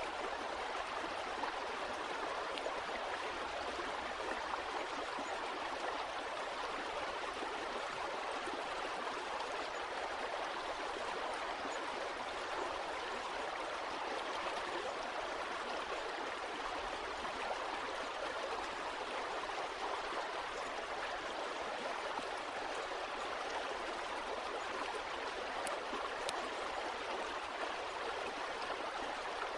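Running water of a stream, a steady even rush with gurgling and no pauses.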